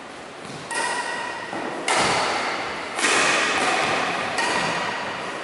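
Badminton rally: a shuttlecock is struck by rackets four times, about a second apart. Each hit rings on briefly in the hall's echo.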